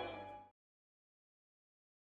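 The last notes of a music jingle fade out, dying away within the first half second with some tones sliding down in pitch, followed by complete silence.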